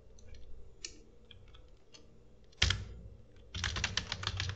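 Typing on a computer keyboard: a few light key clicks, one louder strike about two and a half seconds in, then a quick run of keystrokes near the end.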